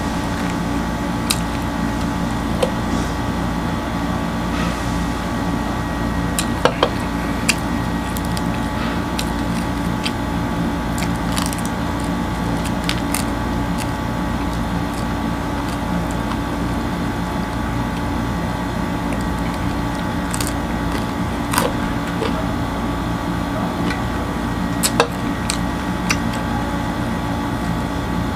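Close-up eating sounds: flatbread being torn by hand and chewed, heard as scattered short clicks and smacks, over a steady machine hum that runs throughout.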